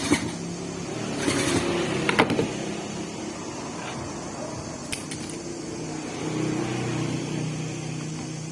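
A steady low hum with sharp clicks and knocks of fan parts being handled, a burst of rustling about a second in.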